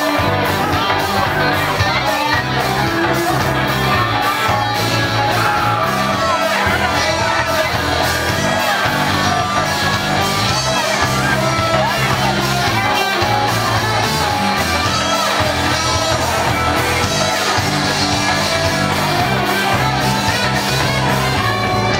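Live band playing a song: electric guitar, bass guitar and drums with a steady beat, and a singer's voice over the music.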